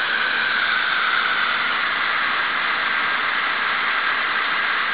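Garden hose spray nozzle spraying water onto soil in a glass container: a steady hiss of spray.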